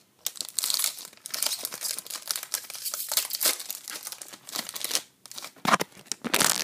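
Crinkling and tearing of a trading card pack's wrapper as it is handled and ripped open, in dense uneven crackles, louder in short surges near the end.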